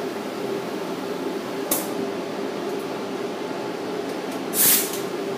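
Spray gun hissing in two short bursts, a brief one about a second and a half in and a louder, longer one near the end, over a steady background hum.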